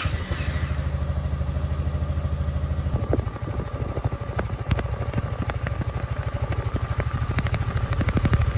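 Honda Forza 300 scooter's single-cylinder four-stroke engine idling steadily just after starting, a quick even pulse heard at the exhaust. Light sharp ticks join in over the second half.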